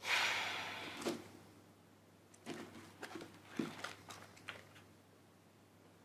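Paperback book pages being handled and turned: a sudden papery rush at the start that fades over about a second, then a few soft crinkles and clicks of paper a couple of seconds later.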